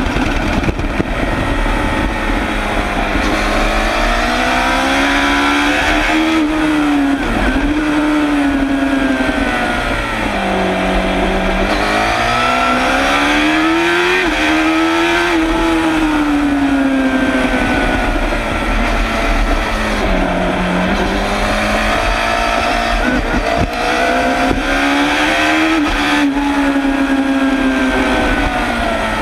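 Suzuki GSX-R750 SRAD's inline-four engine at full racing pace, recorded close to its exhaust silencer. The revs climb repeatedly under hard acceleration and fall away on braking into corners, with sharper drops at about 7, 10, 20 and 26 seconds in.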